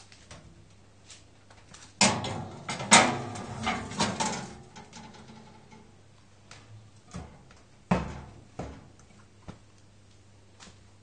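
Metal clinking and scraping on an oven rack as a dial oven thermometer is hung in place. A burst of clatter comes about two seconds in and runs for about two seconds, a single sharp clank follows near eight seconds, and a few light taps come in between, over a low steady hum.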